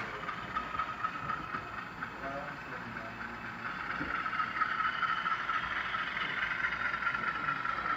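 HO-scale model train running on the track, a steady whirr of motor and wheels on rails that grows a little louder about halfway through as it approaches.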